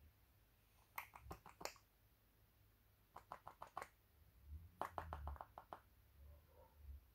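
Faint runs of quick sharp ticks, three bursts of several clicks each, from a baby squirrel's claws scrabbling at a knitted cloth and the floor. A few soft low thumps come in the second half.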